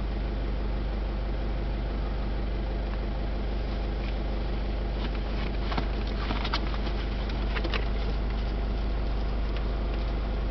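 Vehicle engine idling with a steady low hum. A few light clicks come about halfway through.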